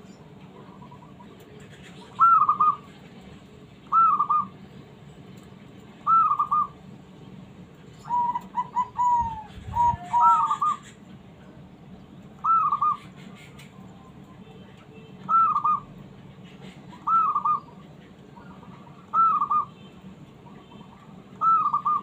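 Zebra dove (perkutut) singing: short trilled coo phrases repeated about every two seconds, with a longer run of quick notes about eight to ten seconds in.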